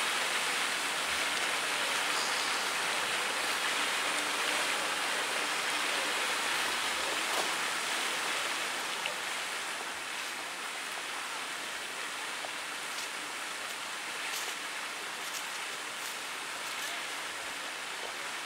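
Water from a tiered fountain splashing into its basin: a steady rushing noise that gets slightly quieter about nine seconds in, with a few faint clicks.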